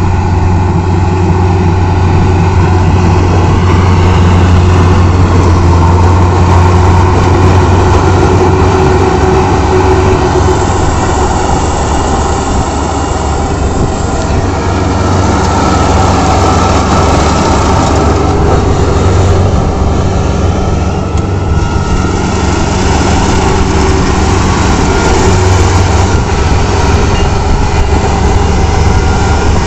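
Combine harvester running steadily with a deep engine hum as it cuts and threshes rice, the level easing slightly twice.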